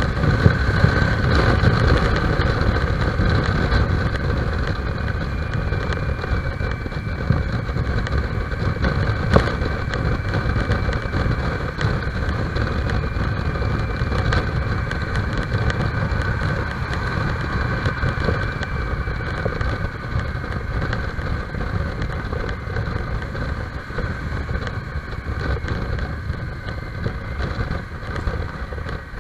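Motorcycle engine running while the bike is ridden, heard from an onboard microphone, with wind noise; the level eases slightly toward the end.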